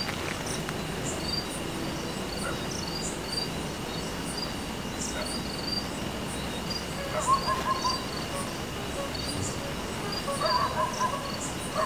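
Crickets chirping: short high chirps repeating about two or three times a second over a steady high-pitched insect drone.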